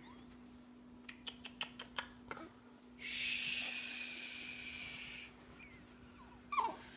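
A hand patting a newborn's back to burp her, about seven quick pats, then a steady "shhh" shushing lasting about two seconds, and a brief squeak near the end.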